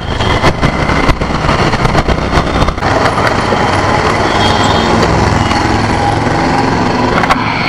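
Honda Activa scooter's small single-cylinder engine running while riding slowly through traffic; about three seconds in the pulsing engine note gives way to a steadier hum as the scooter slows alongside the shops.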